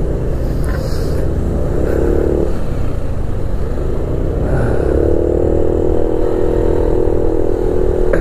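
Yamaha NMAX scooter's single-cylinder engine running under way over a steady low rumble of road noise. A steady engine drone sets in about halfway through and holds.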